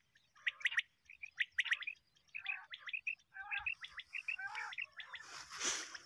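Common quail calling: short, clipped chirps in quick groups of two or three, repeated throughout. About five seconds in, a louder burst of rustling noise.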